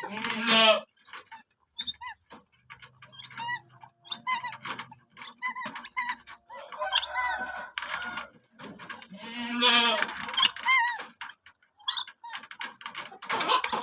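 Cormorants calling while being fed: a string of short, bleating calls, several overlapping. The calls come thickest and loudest at the start and again about ten seconds in.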